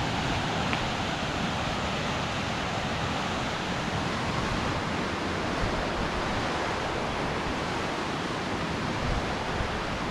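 Baspa River whitewater rapids rushing in a steady, unbroken wash of water noise.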